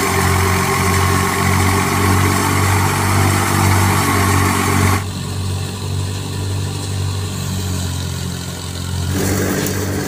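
Tractor-powered wheat thresher running under load: a steady, loud engine drone mixed with the whir of the threshing machine. The mix changes abruptly about halfway through and again near the end as the view shifts.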